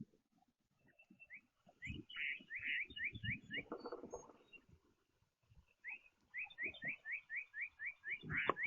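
A songbird singing two quick series of short rising whistled notes, about five or six a second, with soft low thumps and knocks underneath.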